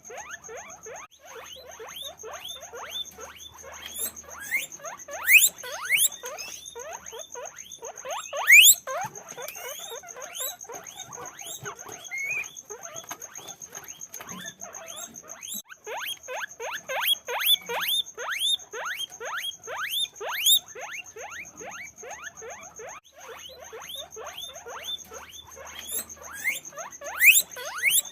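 Many guinea pigs squeaking at once: a dense, overlapping chorus of short high calls, with some louder squeals standing out. A steady high-pitched whine runs behind them.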